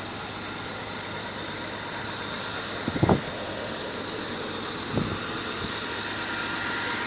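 Oil drilling rig machinery running steadily, with a quick cluster of knocks about three seconds in and another single knock about five seconds in.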